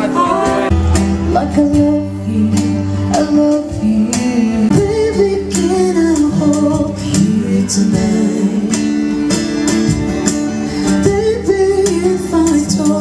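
Live acoustic music: an acoustic guitar strummed under a man and a woman singing through microphones.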